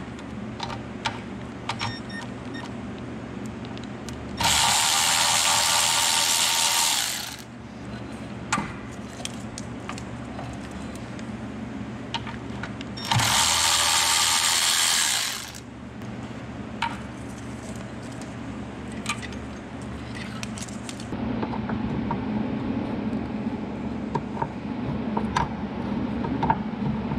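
Cordless electric ratchet running in two bursts of about three seconds each, spinning nuts off the starter solenoid cable terminals, with small clicks of tool and metal handling between them. A steady low hum comes in over the last few seconds.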